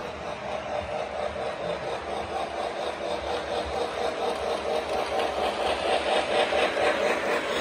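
Polar Express S gauge model steam locomotive and coaches running along the track, with a rhythmic chuffing that grows louder as the train comes up to and passes close by.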